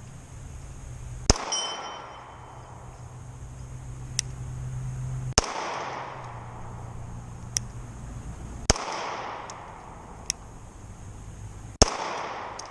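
Springfield Armory XDS 3.3 9mm subcompact pistol fired four times in slow, aimed single shots, about three to four seconds apart, each shot followed by a fading echo. Fainter sharp cracks fall between the shots, and a brief high metallic ringing follows the first shot.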